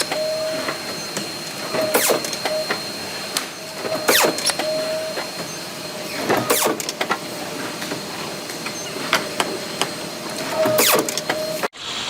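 Forging machinery working in a cycle: a sudden clanking stroke every two seconds or so, each followed by a short hum, over a constant thin high whine. There is a longer pause between strokes about two-thirds of the way through.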